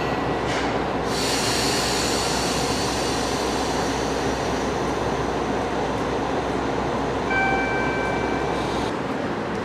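Anpanman-liveried diesel train running, a steady rail and engine noise, with a brief high pitched tone about seven seconds in. The low rumble drops away near the end.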